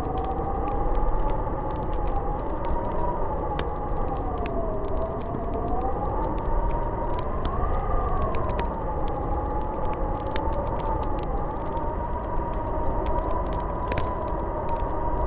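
Snowstorm wind howling: a whistling tone slowly wavers up and down in pitch over a steady rushing noise. Scattered faint light clicks run through it.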